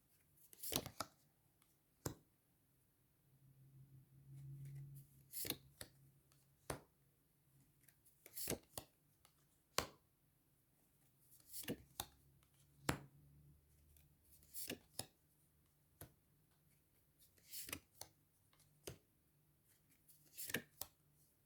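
Tarot cards being drawn and laid down on a table: scattered sharp clicks and taps at irregular intervals, with a faint low hum now and then.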